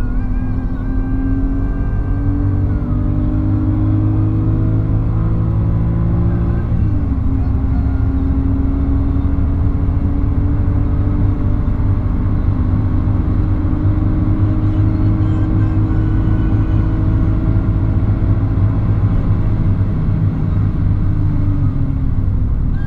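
BMW 330i's straight-six engine heard from inside the cabin, pulling hard on track. The revs climb slowly, drop sharply about seven seconds in with an upshift, climb again, then ease off near the end.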